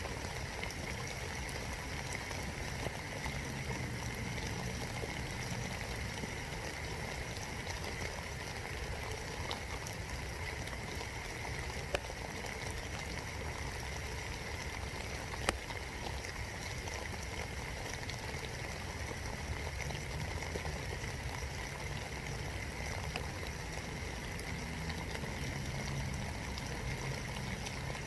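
Steady rain falling, heard from inside a birdhouse, with two sharper single drop hits partway through.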